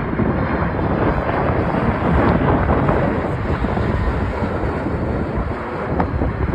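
Boeing 767-200 jet airliner's engine noise as it lands, a dense rumble mixed with strong wind buffeting the microphone.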